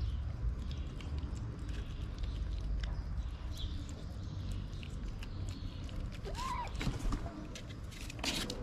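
Cats eating wet food from a plate, with small chewing and smacking clicks over a steady low background rumble. A short kitten mew rises and falls about six and a half seconds in, and a brief rasping noise comes near the end.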